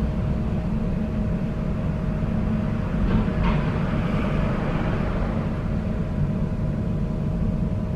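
Nuremberg tram running along its line, heard from inside the car: a steady low rumble of wheels on rails with a thin steady tone over it, and a brief brighter rushing sound about three seconds in.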